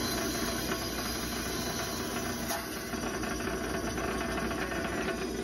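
Table saw running steadily, used to cut lengthwise glue-relief grooves into a wooden dowel, with one sharp click about halfway through.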